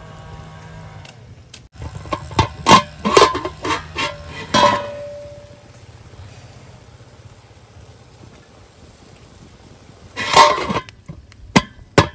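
A spoon knocking and scraping against a metal cooking pot while rice is stirred, with a few ringing clinks. Near the end the metal lid clatters onto the pot with a couple of sharp knocks.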